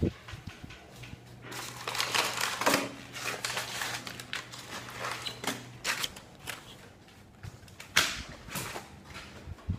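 Close handling noise as a handheld phone is carried and moved about: irregular rustling, scraping and knocks, busiest in the first few seconds. A low steady hum runs under it for several seconds in the middle.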